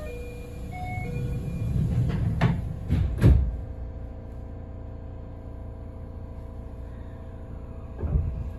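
Inside a JR West 207 series commuter car standing at a station: a brief chime of a few stepped tones, then the sliding doors closing with three heavy thuds about two and a half to three and a half seconds in. The stopped car then hums steadily with no motor whine yet, and a single thump comes near the end.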